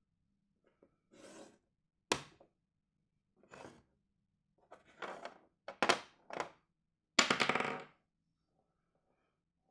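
Chess pieces being slid across and set down on a board: a series of knocks and short slides, with a sharp knock about two seconds in and a brief clattering rattle near the end.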